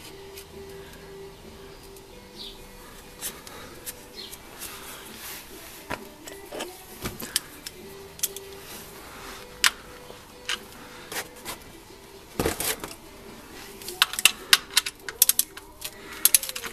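Scattered metallic clicks and knocks of hand tools being handled under a car, one louder knock about twelve seconds in, then a quick run of socket ratchet clicks near the end as the ratchet is worked on a bolt.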